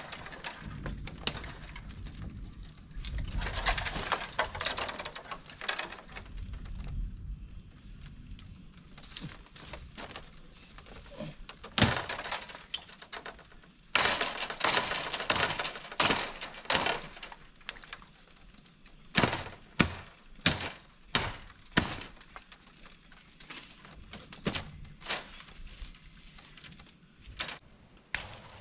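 Irregular sharp cracks and knocks, several in quick clusters, over a steady high-pitched whine, with a low rumble about three to seven seconds in.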